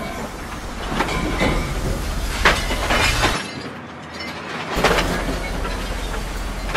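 Racks of porcelain toilets toppling and smashing: a continuous rumbling clatter with several loud crashes of breaking ceramic. It breaks off for about a second midway, then resumes.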